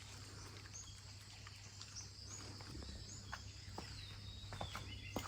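Faint birds chirping, with a few short high calls and one slightly falling note, over a steady outdoor hiss. Scattered soft ticks sound now and then.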